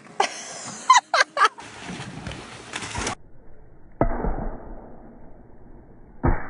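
Three short, high, loud cries from a person in quick succession about a second in, over a steady noisy hiss; after a brief gap, dull outdoor background sound with a sharp knock near the end.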